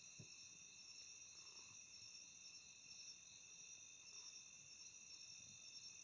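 Faint, steady chorus of crickets and other insects, several trilling at different pitches at once.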